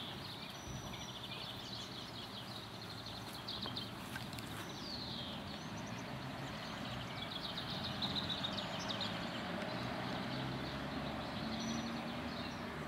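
Steady background hum of distant city traffic, with small birds singing in rapid trills and a few falling chirps.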